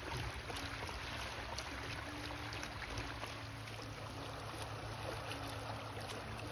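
Small creek running fast over a shallow bed: a steady rushing of water.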